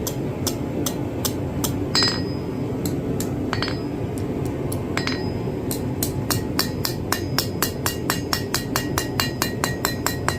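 Hand hammer striking hot iron on an anvil with ringing blows, glancing over the anvil's edge to roll a scroll. Scattered blows at first, then a quick steady run of about four blows a second from about six seconds in.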